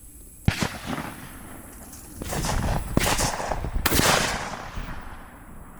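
Shotgun shots from a dove hunt: one sharp report about half a second in, then several more shots between about two and four seconds in, each trailing off slowly.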